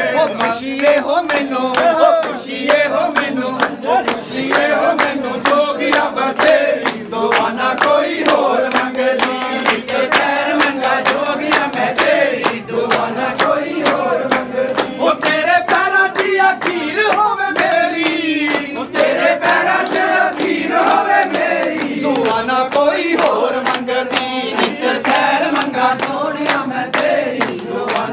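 A group of men singing a Punjabi devotional bhajan together in loud chorus, to steady rhythmic hand-clapping.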